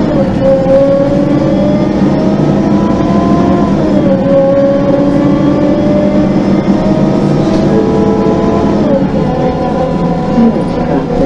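MAN NG 273 articulated bus's LPG engine pulling away under load, heard from inside the bus. The engine note climbs steadily and then drops as the Voith automatic gearbox shifts up, about four seconds in and again about nine seconds in.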